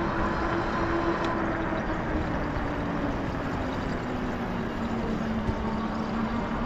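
Electric bike riding on pavement: a steady hum from the motor and fat tyres that slowly drops in pitch, over an even rush of tyre and wind noise.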